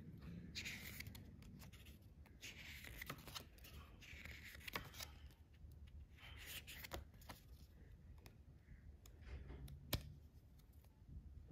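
Faint rustling of the paper pages of a Rolex instruction booklet as it is handled and leafed through, a soft rustle every second or two with small clicks, and one sharp tap about ten seconds in.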